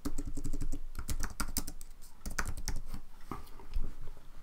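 Typing on a computer keyboard: an irregular run of quick key clicks as a short text is typed and corrected.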